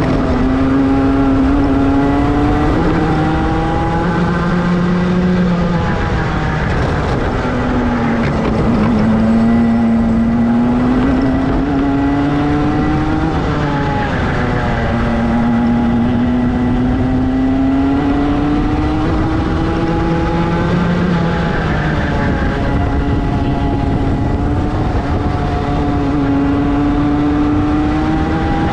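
Rotax two-stroke kart engine racing round a circuit. Its pitch climbs steadily along each straight and drops sharply under braking for the corners, five or so times, and a second kart engine is heard alongside at times.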